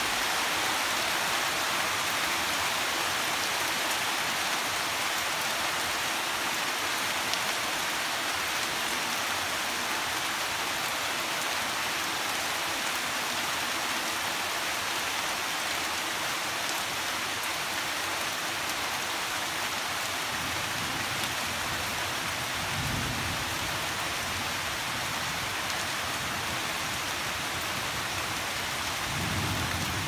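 Heavy rain falling steadily on a courtyard and on the leaves of garden trees, an even hiss. Two brief low rumbles come in the last third, about six seconds apart.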